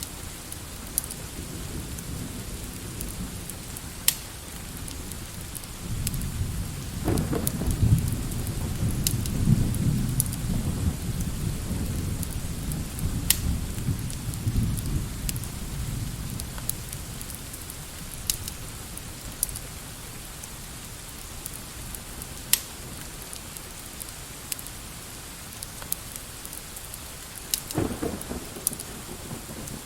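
Steady rain with a long low roll of thunder that swells about six seconds in and fades over ten seconds; a second rumble begins near the end. Scattered sharp crackles from a fireplace sound throughout.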